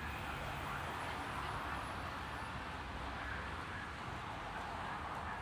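Steady city street ambience: a low rumble of traffic under an even hiss of the street.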